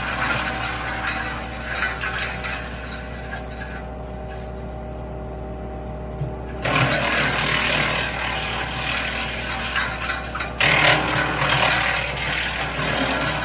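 WoodMaxx MX-8800 PTO-driven wood chipper, driven by a Kubota L3901 tractor's diesel engine, chipping apple tree prunings: a steady machine drone under loud rough bursts as branches go through the blades. It eases off a few seconds in, then surges loud again suddenly about halfway through and once more near the end.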